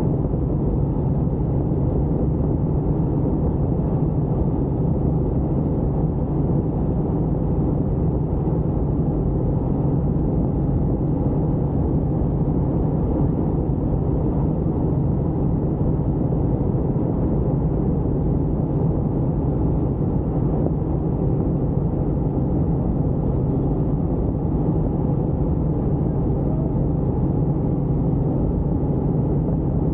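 Helicopter in steady flight: even engine and rotor noise with a constant low hum.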